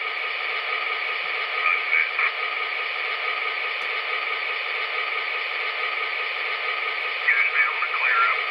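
MTH HO-scale GP35 model diesel's onboard sound system playing its PFA feature: steady two-way-radio hiss and crackle through the model's small speaker, with short bursts of distorted radio speech about two seconds in and again near the end.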